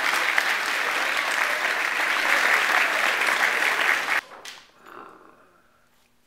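Crowd applause, a dense patter of clapping that cuts off suddenly about four seconds in.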